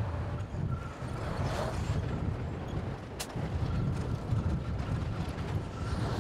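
Distant heavy equipment diesel engines running with a steady low rumble and a faint whine. There is a single sharp click about three seconds in.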